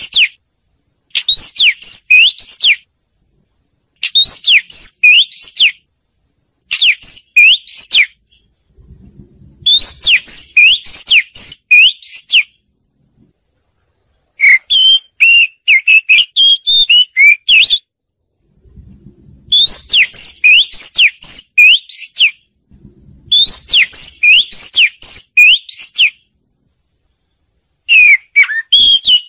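Oriental magpie-robin singing in repeated phrases of quick, clear whistled notes that sweep up and down, each phrase a second or three long, with short silent gaps between them.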